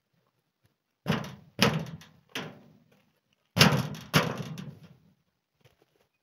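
Corrugated iron sheet in a timber frame being kicked into place with a rubber boot: five thuds, each with a short rumbling ring-out, the loudest two a little past the middle.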